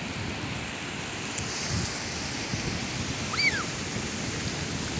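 Sea waves washing onto a beach, a steady surf hiss with wind rumbling on the microphone. About three and a half seconds in, a single short high-pitched cry rises and falls.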